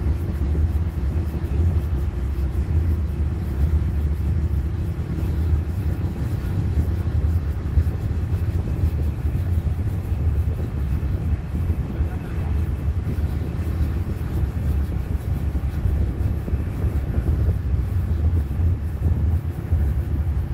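Steady low rumble of a moving vehicle, engine and tyres running at an even speed.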